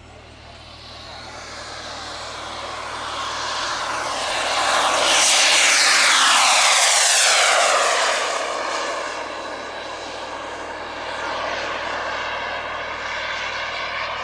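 Jetsmunt TS-166 turbine of a Feibo Viper model jet at high power, a high whine rising in pitch at first. The jet roar swells as the model takes off and passes close by, loudest about halfway, its pitch falling as it goes past, then steadier as it climbs away.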